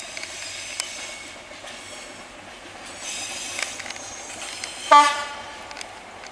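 Diesel train running past with a rushing noise and a few sharp clanks, growing louder partway through; about five seconds in, the locomotive's horn gives one short blast, the loudest sound.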